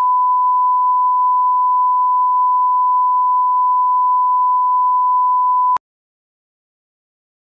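Steady line-up test tone played with colour bars: one unbroken, pure pitch that cuts off suddenly about six seconds in.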